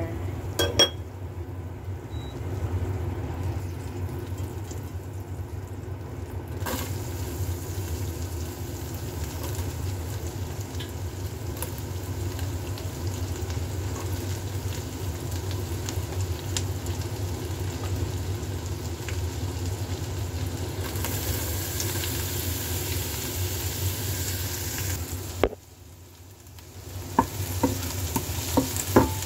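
Butter with chopped red onion and garlic sizzling in a stainless steel pan. The sizzle grows louder about a quarter of the way in and again later, drops out briefly near the end, and gives way to a few light knocks.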